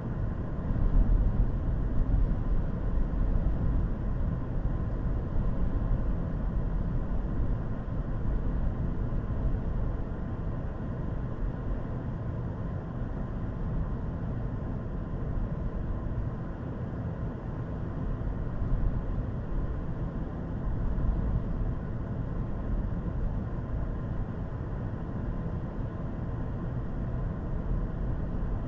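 A steady low rumbling noise with a few slight swells in level and no distinct events.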